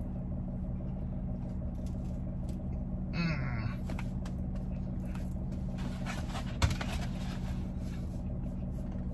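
A person chewing a bite of pizza over a steady low hum, with a short closed-mouth voice sound about three seconds in and a single knock a little before seven seconds.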